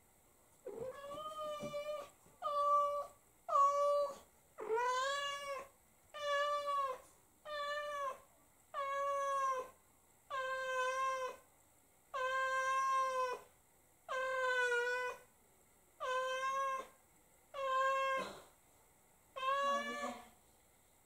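Silver tabby American Shorthair cat meowing over and over, about thirteen drawn-out meows roughly one every second and a half, crying for its owner who has just left the house.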